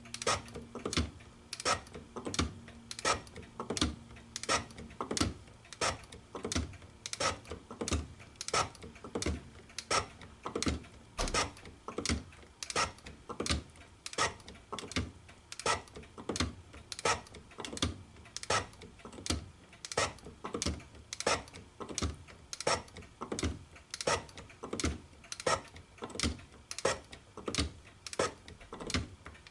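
Hand shaper working metal in steady, regular strokes, each marked by a sharp metallic click, about one and a half a second.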